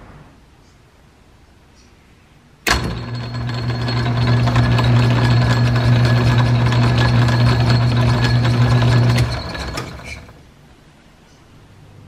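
Small Atlas lathe switched on a few seconds in, its motor humming and its change-gear train whirring with a fine rapid clatter while it takes a light scratch pass for a 24-threads-per-inch thread. It is switched off about nine seconds in and runs down over a second.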